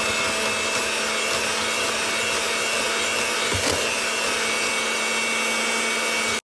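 Electric mixer running at a steady speed, beating raw eggs in a glass bowl, its motor giving a constant whirring hum. One brief knock sounds about halfway through.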